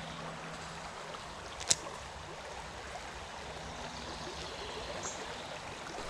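Creek water running steadily over rocks. A single sharp click about a second and a half in.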